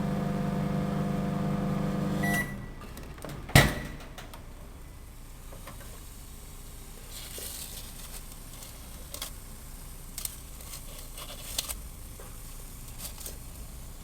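Microwave oven running with a steady hum that cuts off about two seconds in with a short beep. A loud click follows a second later, then only scattered faint clicks.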